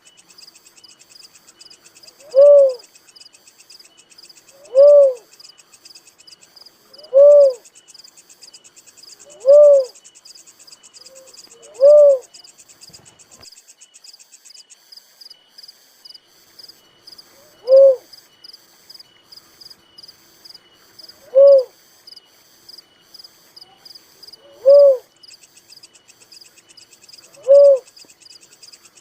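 A dove calling in single low hooting notes, nine in all, about one every two and a half seconds, with a pause of several seconds midway. Insects chirr steadily in the background.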